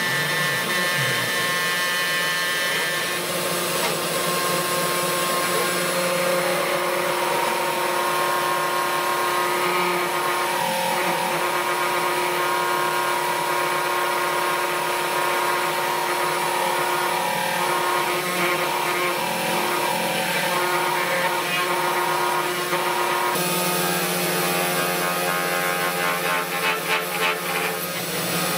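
Home-built mini CNC router running its axes on stepper motors and lead screws: a steady machine whir with several held tones that shift as the moves change, the steppers now mostly free of vibration noise. About five seconds before the end, the sound changes to the spindle bit cutting a sheet, rougher and uneven.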